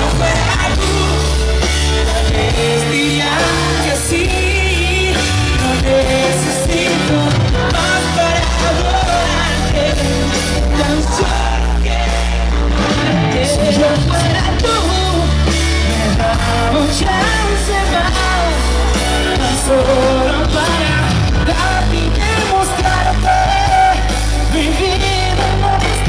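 Live band music played loud through a PA: drums, electric bass and guitars with a male voice singing over them, heavy in the bass.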